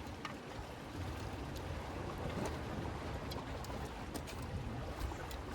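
Wind rumbling on the microphone over the steady wash of sea water, with a few faint clicks.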